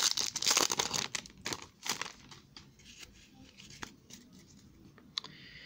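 Foil wrapper of a football card pack being torn open and crinkled: a dense crackle for about the first second, then scattered light snaps and clicks as the cards are pulled out and handled.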